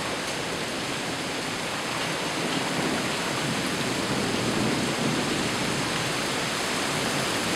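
Heavy thunderstorm rain pouring steadily, a constant even hiss.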